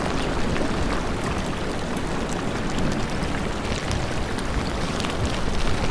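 Wind and a wide, fast-flowing river making a steady, even rushing noise.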